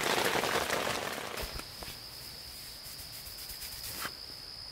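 Rain pattering on a tent for about a second and a half, then a cut to quieter surroundings where an insect trills steadily at a high pitch. A soft click comes near the end.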